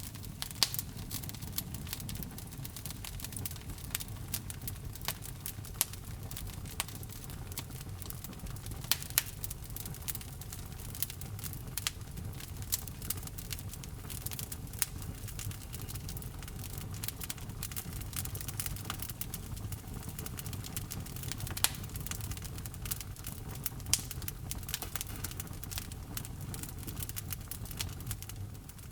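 Wood fire burning in a fireplace: a steady low rumble of flames with constant crackling and frequent sharp pops from the burning logs.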